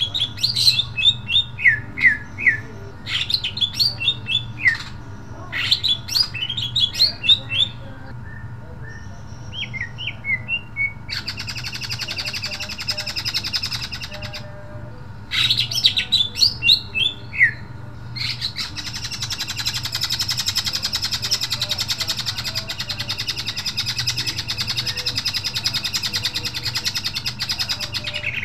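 Male green leafbird (cucak ijo) singing: runs of sharp, loud, falling chirps, broken by long unbroken rapid trills about a third of the way in and again from about two-thirds of the way in.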